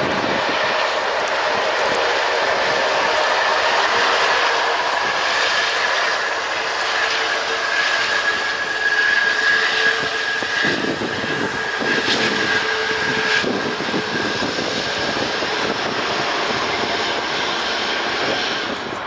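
An Airbus A340-600's four Rolls-Royce Trent 500 jet engines during the landing roll on a wet runway: a steady loud rush of jet noise with a high whine in it.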